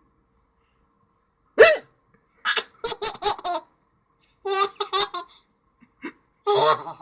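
A sharp hiccup, then repeated bursts of laughter.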